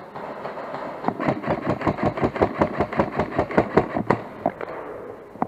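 BOLT recoiling airsoft electric rifle (AEG) firing a rapid string of shots, about seven a second, for about three seconds starting about a second in.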